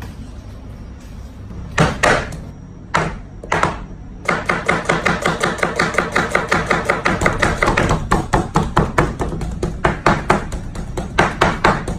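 Kitchen knives chopping raw minced meat on a cutting board. A few separate chops come first, then a fast run of rapid strokes for several seconds, then steadier chopping at a few strokes a second.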